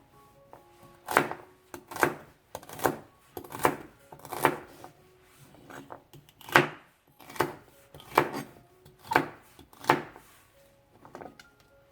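Knife cutting celery stalks: about ten separate chopping cuts, fairly evenly spaced, a little under a second apart.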